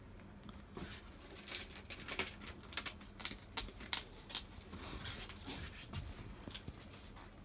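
Thick plastic wrapping on a rolled-up, compressed mattress crackling and rustling under the hands as the roll is pressed along and turned over, with a run of sharp crinkles in the middle.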